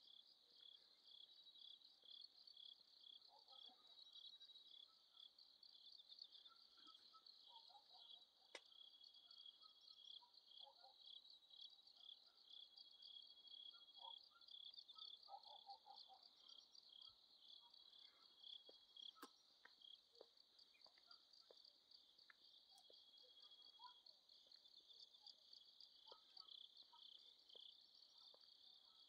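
Faint chorus of crickets chirping at night: a steady, high-pitched trill of rapid pulses, with a few faint clicks here and there.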